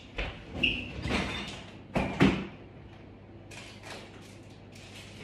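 A kitchen fridge door being opened, with a few knocks and clunks as things are shifted about inside; the loudest clunk comes about two seconds in, then quieter rummaging.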